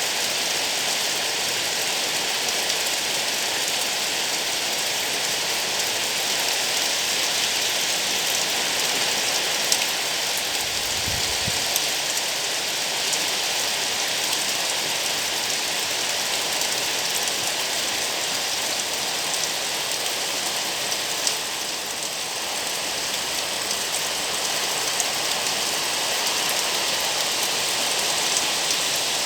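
Steady rain falling, a continuous even hiss with faint drop ticks; a brief low rumble about eleven seconds in.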